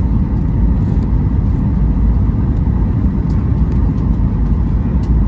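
Steady cabin noise of a Boeing 737-8 MAX airliner in descent: a low rumble of engines and airflow heard from a window seat, with a faint steady hum above it.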